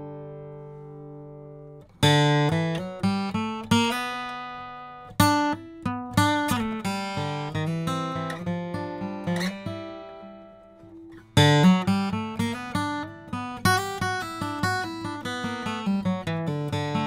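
Martin D-28 dreadnought acoustic guitar (spruce top, rosewood back and sides) played solo. A chord rings and fades for the first two seconds, then a picked run of single notes and chords follows. A fresh loud attack comes about eleven seconds in, and the picking continues.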